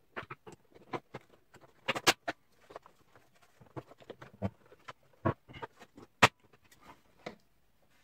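Red plastic housing of an Electrolux SuperCyclone vacuum being prised off with a thin screwdriver: irregular plastic clicks, creaks and scrapes, with sharp snaps of the housing clips letting go about two seconds in and again about six seconds in.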